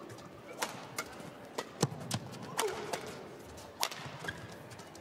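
Badminton rally: rackets striking the shuttlecock in sharp cracks about once a second, with a brief squeak near the middle.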